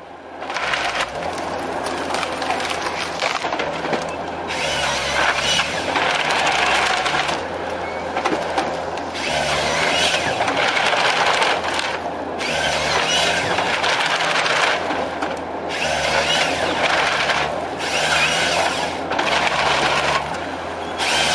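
Tree delimbing machine stripping branches off a trunk: an engine hums steadily underneath a series of loud, rough bursts of wood being scraped and torn, each lasting one to three seconds with short pauses between them.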